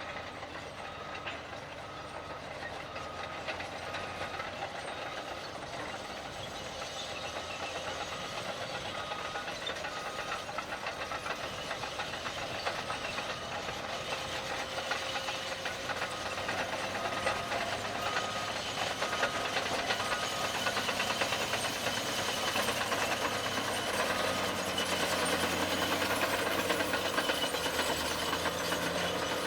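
Caterpillar D8T bulldozer's diesel engine running under load with track clatter, growing gradually louder. A reverse-alarm beep repeats about once or twice a second through the first half and then stops.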